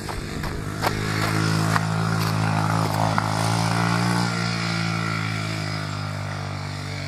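Small dirt bike engine running at steady revs as the bike rides past, growing louder to about the middle and then slowly fading as it moves away.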